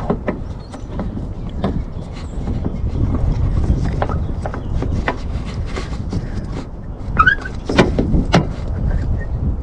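Scattered plastic clicks and knocks of hands working a bulb and connector into the back of a headlight housing, over a steady low rumble, with a brief squeak late on.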